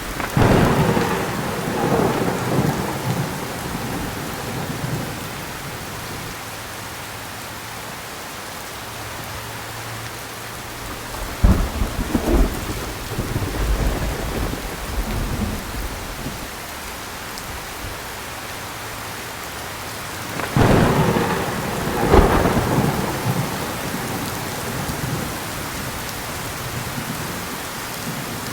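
Thunderstorm with steady heavy rain. Thunder rumbles at the start, cracks twice in quick succession about a third of the way in, then claps twice more about three-quarters through, the second clap the loudest, each trailing off in a low rumble.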